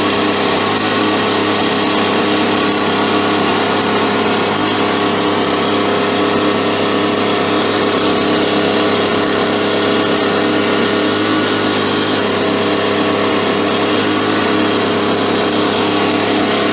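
Swarm-catching bee vacuum running steadily at full power, an even motor drone with several fixed tones.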